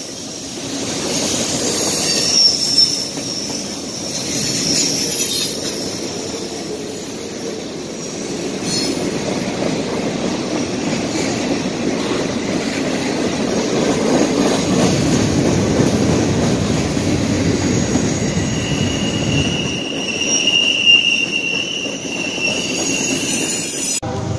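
Freight train of covered hopper cars rolling past close by: a steady rumble of steel wheels on rail, with high-pitched wheel squeal coming and going, clearest about twenty seconds in.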